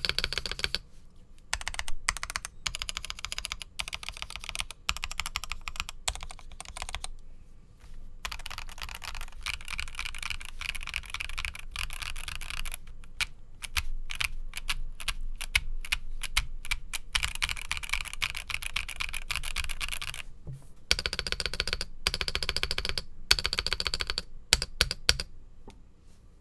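Stock Epomaker EK68 mechanical keyboard being typed on: fast runs of key clacks broken by short pauses.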